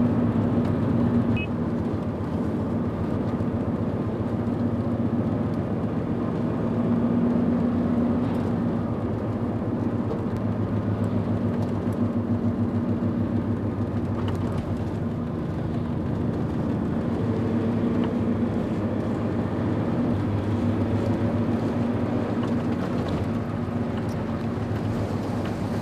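Car driving steadily on a city road, heard from inside the cabin: an even engine hum and tyre noise.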